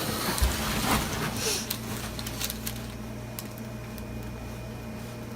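A patient shifting and turning over on a padded treatment table: rustling and creaking in the first second or so, then a steady low hum with a few faint clicks.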